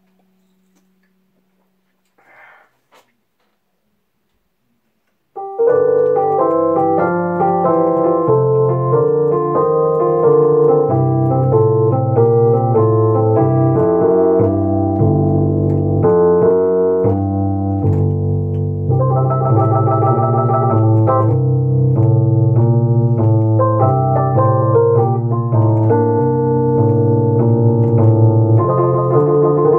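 Solo piano playing that begins abruptly about five seconds in, chords over a moving bass line. Before it, near silence with a faint brief sound and a click.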